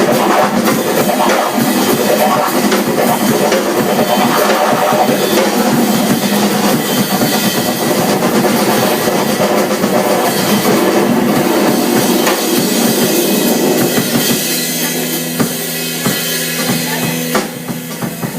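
Rock-style music with a full drum kit, kick and snare playing throughout; near the end the drums drop back and a sustained low note carries on.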